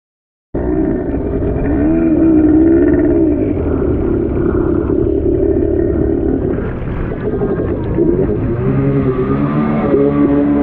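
Two-stroke jet ski engine running, its pitch rising and falling with the throttle over a low rumble. The sound cuts in abruptly about half a second in.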